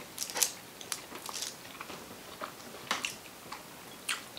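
People biting and chewing sushi up close: soft, scattered mouth clicks and crunches, a few of them louder, near the start and about three seconds in.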